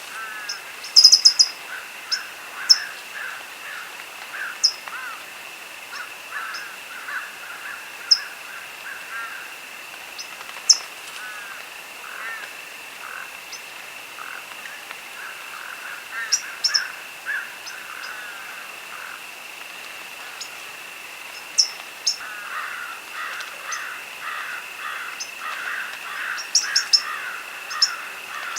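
Crickets trilling steadily, with birds calling: many short warbling calls and sharp high chirps, busiest about a second in and again in the last few seconds.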